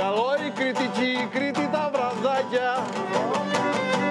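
Live Cretan folk dance music: a Cretan lyra carrying a wavering, gliding melody over two laouta strummed in a fast, even rhythm, with a man singing.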